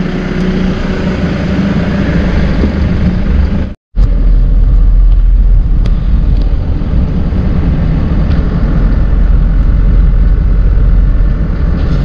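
Motorcycle running on the road with steady, heavy wind noise on the microphone, broken by a sudden brief dropout about four seconds in.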